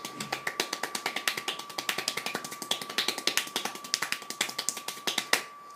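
Very fast hand clapping, one hand flicking against the other at about ten claps a second, stopping abruptly after a louder final clap about five seconds in.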